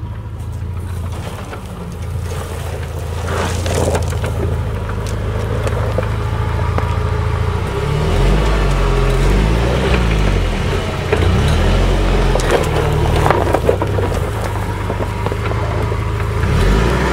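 UAZ off-roader's engine pulling under load as the vehicle crawls up a dirt slope, steady at first, then revving up and down repeatedly from about halfway through. Soil and stones crunch under the tyres.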